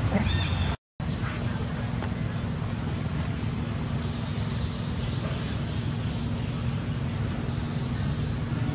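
A few high, squeaky calls in the first half-second, cut off by a brief dropout, then steady outdoor background noise with a low hum.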